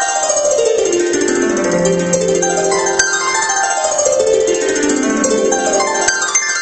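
Magical harp sound effect: harp glissandi sweeping downward from high to low notes, one run after another about every three seconds, the ringing notes overlapping.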